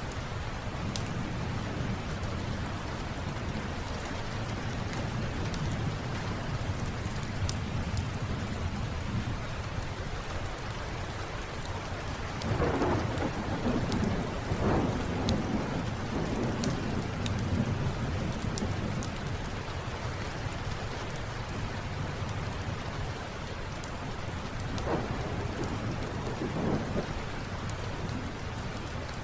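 Steady rainfall with scattered sharp crackles from a wood fire. Thunder rumbles about twelve seconds in for several seconds, and again more briefly near the end.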